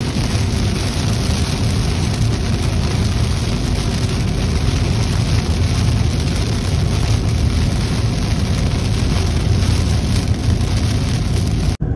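Heavy rain falling on a moving car's roof and windshield, mixed with tyre noise on the wet road, heard from inside the cabin as a steady loud hiss. It stops abruptly just before the end.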